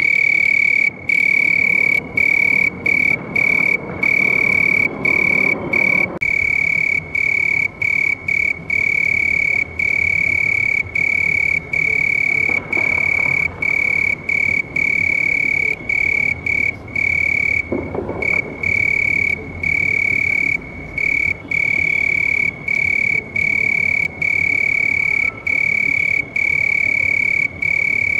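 Cricket chirping: one loud, steady, high-pitched trill, broken by short, irregular pauses.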